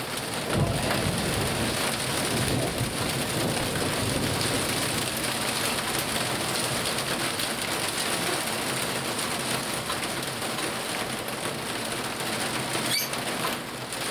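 Heavy rain falling steadily in a thunderstorm. A low rumble of thunder starts about half a second in and dies away over the next few seconds.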